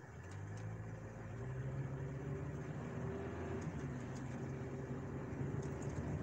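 Car engine pulling away and accelerating, heard from inside the cabin: a low hum that grows louder and rises a little in pitch over the first couple of seconds, then holds steady as the car cruises.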